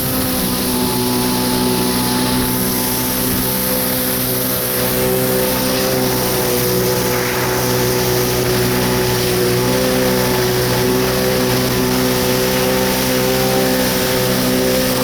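Two-stroke twin engine of a 1993 Kawasaki 650SX jet ski running at a steady, high speed, its pitch holding level, with a steady hiss over it.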